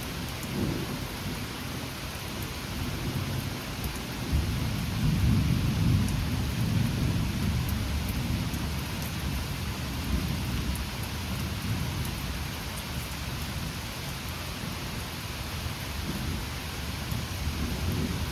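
Steady rain falling during a thunderstorm, with a long rolling rumble of thunder that swells about four seconds in, peaks around five to six seconds, then slowly fades.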